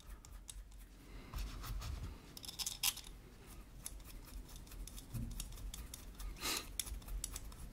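Faint handling sounds of small metal parts being fitted by hand into a brass-and-black box mod: light scraping with scattered small clicks, sharper ones a little under 3 seconds in and again about 6.5 seconds in.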